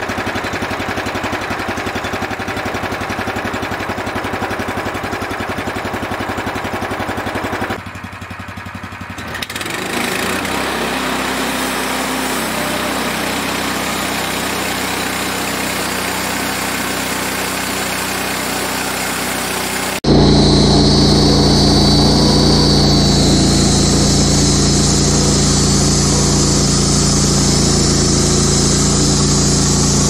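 A portable band sawmill's small horizontal-shaft gas engine runs steadily. About eight seconds in it dips for a second or two. About twenty seconds in it becomes abruptly much louder and fuller, with a strong steady hum and a high hiss.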